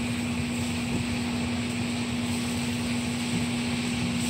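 Steady drone of an over-the-range vent fan with a constant hum, under the hiss of beef, peppers and onions sizzling in a hot skillet.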